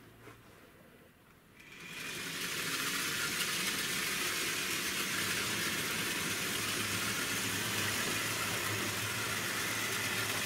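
Hornby Dublo Co-Co 3232 model diesel's ring-field motor and wheels running on three-rail track with a rake of wagons: a steady whirring and rolling rattle that starts up about two seconds in and then runs evenly. It seems slightly sluggish, which the owner thinks might mean the motor's magnet needs remagnetising.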